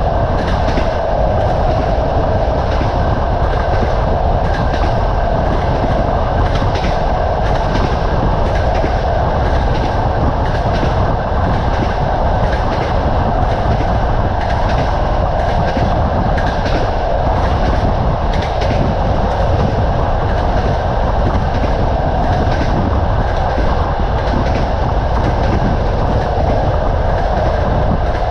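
Train running along the track at steady speed: a continuous rumble with the wheels clicking over rail joints every second or so.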